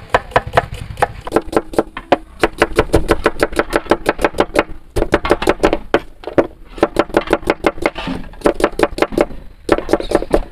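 Knife rapidly chopping onions on a cutting board, about six strokes a second in long runs with short pauses.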